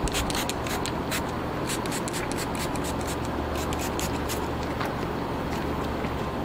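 Trigger spray bottle spritzing helmet cleaner onto a motorcycle helmet: many quick, short sprays, about two or three a second, over a low steady hum.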